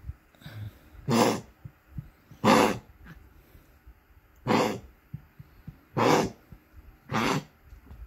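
Small chihuahua-type dog coughing five times, a harsh hacking cough every second or two. The dog is on enalapril and Lasix (furosemide), medication for heart disease.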